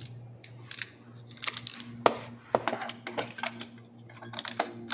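Sharp plastic clicks and knocks from a JVC KD-G499 car stereo's detachable faceplate being handled and snapped back onto the head unit, with a cluster of clicks near the end as it latches.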